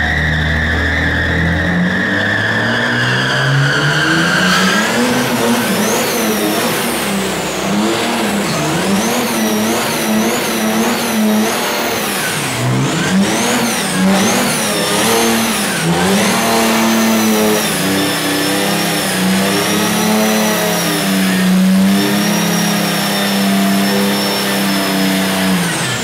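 1949 Ford F1 pickup's 1200 hp twin-turbo diesel doing a burnout, revving up and down over and over as the rear tyres spin. A high whine rises and falls with the revs, over a high tone that falls away in the first few seconds.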